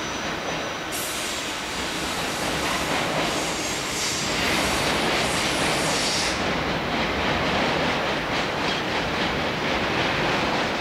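NS ICMm 'Koploper' electric intercity train rolling past: a steady rumble of wheels on rails. A high hiss runs over it from about a second in until about six seconds in.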